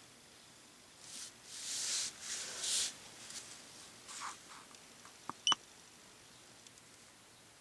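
Handling rustle of a handheld iCarSoft i910 diagnostic scan tool, then a keypad press with two short electronic beeps from the tool a little after five seconds in, the second beep louder.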